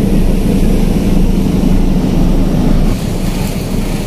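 Steady low rumble of the car ferry KMP Port Link III under way, heard on board; the drone eases slightly about three seconds in.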